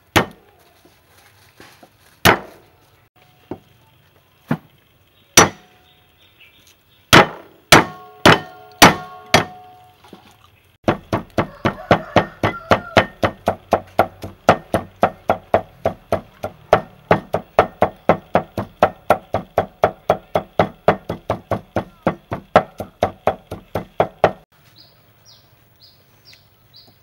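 Steel cleaver striking garlic on a thick wooden chopping block: about a dozen separate, spaced whacks on the whole cloves, then a long run of fast, even mincing chops, about four a second, that stops a few seconds before the end.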